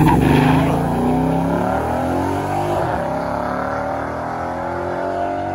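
Jeep Grand Cherokee SRT8's HEMI V8 at full throttle on a drag-strip run. The engine note climbs through the gears and grows fainter as the SUV pulls away down the track.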